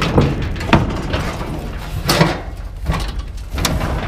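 Scrap metal being handled: a series of clanks and knocks, about five over four seconds, the loudest about two seconds in. These are most likely the heavy metal heat plates from inside a grill.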